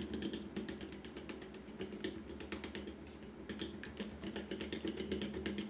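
A fork beating eggs and batter in a stainless steel bowl: a quick, steady run of clicks as the fork strikes the metal bowl.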